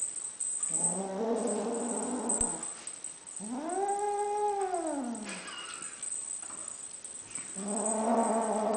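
Lilac Ocicat kitten growling possessively over a wand toy, a puppy-like growl. A rough growl, then one long yowl that rises and falls in pitch, then a second growl near the end.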